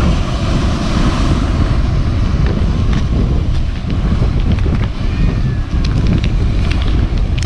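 Wind buffeting the microphone in a loud, irregular low rumble, with a few short clicks in the middle.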